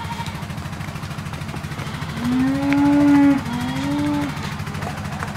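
A cow mooing twice, a long low call followed by a shorter one, over a steady low hum.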